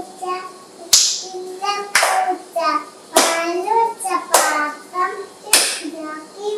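A child singing a song while the family claps along in time: five sharp hand claps a little over a second apart, with the singing between them.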